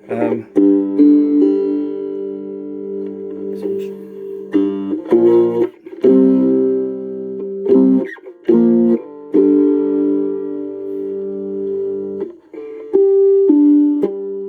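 Cigar box guitar in open G tuning, played amplified through a small Vox Mini 5 Rhythm amp on its clean channel: strummed chords ringing out, with several chord changes.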